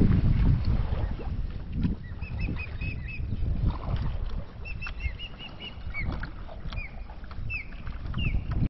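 Ospreys calling: two quick runs of five or six short, high chirps about two and five seconds in, then single slurred whistles every second or so. Low wind and water noise runs underneath, loudest at the start.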